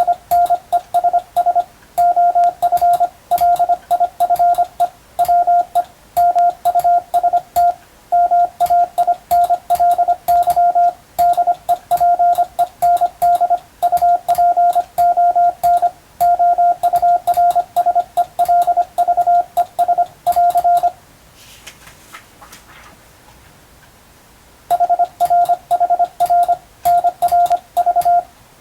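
Hand-keyed Morse code (CW): a single steady beep tone switched on and off in quick dots and dashes, sending English-text telegram practice. The keying stops for about four seconds about three quarters of the way through, then starts again.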